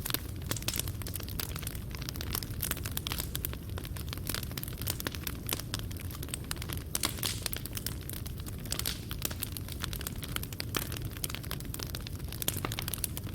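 Fireplace fire burning, the coals crackling and popping in many irregular sharp snaps over a low steady rumble.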